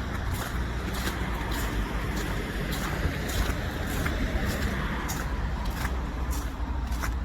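Footsteps crunching in snow at a walking pace, about two steps a second, over the steady rumble of road traffic.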